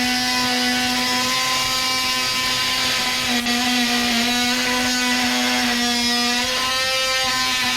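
DeWalt oscillating multi-tool running steadily with a high buzzing whine, its blade cutting through a steel seat security screw seized with Loctite. The tone briefly dips about three and a half seconds in.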